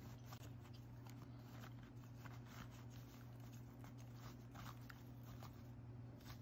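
Faint, irregular crackles and clicks of dry baked cornstarch chunks being crunched, over a steady low hum.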